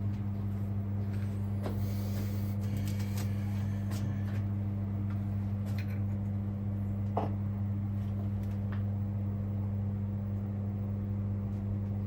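Steady low electrical or machine hum, with a few faint clicks and taps scattered through it.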